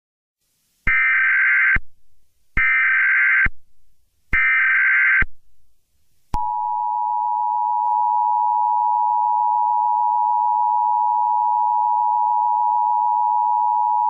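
Emergency Alert System broadcast opening: three short bursts of screeching digital data, the SAME header that encodes the alert, then, about six seconds in, the steady two-tone EAS attention signal that warns an emergency message is coming.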